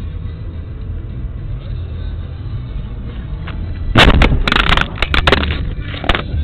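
A car's steady engine and road rumble, then a collision about four seconds in: a quick series of loud crashing impacts over about two seconds, loud enough to distort the dashcam's microphone.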